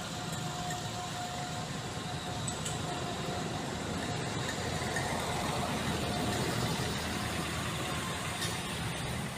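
Engine of a heavy working vehicle running steadily, with a constant low hum.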